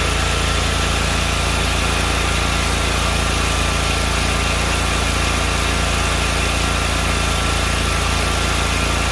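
Freshly rebuilt Kawasaki FH680V V-twin mower engine running steadily at a constant speed.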